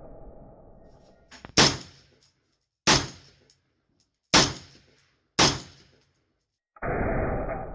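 AR-15 firing four single semi-automatic shots at an uneven pace, about a second to a second and a half apart, each with a short ringing tail. Near the end comes a louder, muffled boom with a long fade.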